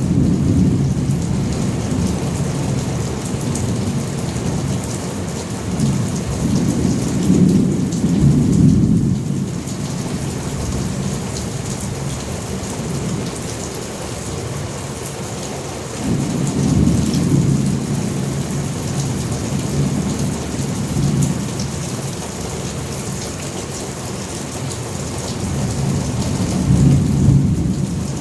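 Steady heavy rain with low rolling thunder that swells and fades about four times.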